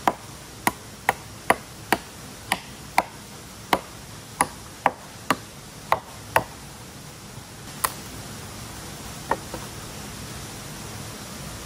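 A blade chopping into a wooden branch: a quick run of sharp chops about two a second, then two more spaced-out strikes near the end.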